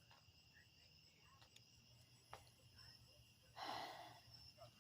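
Near silence with a faint, steady insect chorus, thin high tones that hold throughout; a soft breathy rush comes a little before the end.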